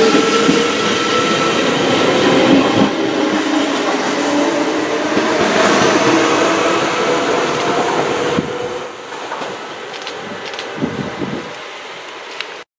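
NS Sprinter electric commuter train running past along the platform, with wheel and rail noise and a faint whine rising slightly in pitch. The sound drops away about eight seconds in as the last carriage moves off.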